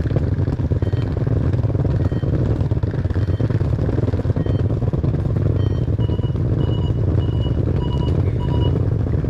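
Steady low rumble of outdoor street noise on the camera microphone while walking. In the second half an electronic signal beeps five times, short high beeps about two-thirds of a second apart.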